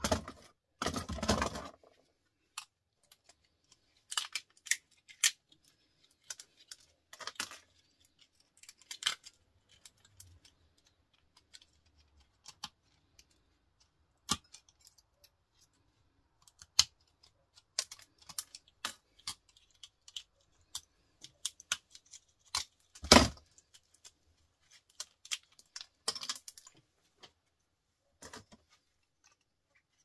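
Small metal and plastic scrap parts, such as microwave micro switches, being handled: scattered sharp clicks and light clinks, a short clatter about a second in and one louder knock about three-quarters of the way through.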